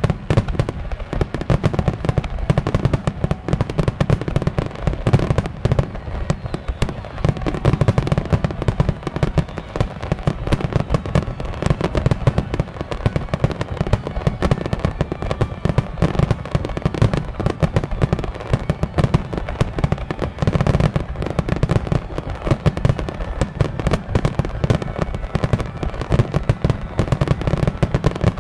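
Fireworks display in a rapid barrage: many bangs and crackles a second, overlapping without a pause.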